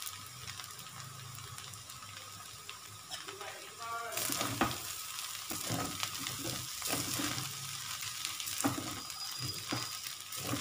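Cooked rice being stirred and scraped in a pan with a spoon over a faint frying sizzle. The stirring gets louder about four seconds in, with repeated scrapes and knocks against the pan.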